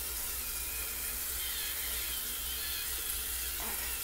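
Electric facial cleansing brush with a sensitive-skin head running against the face, its small motor giving a faint whine that wavers in pitch, over the steady hiss of a running tap.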